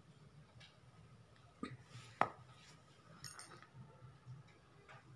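Faint handling of steel cookware: two sharp clicks about a second and a half and two seconds in, then a short ringing metallic clink a little past three seconds.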